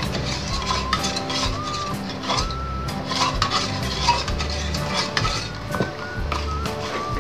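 A spoon stirring and scraping around a small tin pot of thickening rice-flour porridge, with many light clinks against the metal, over background music.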